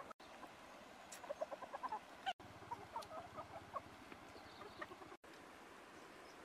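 Chickens clucking in two quick runs of short notes, about a second in and again near three seconds, over a faint steady background hiss.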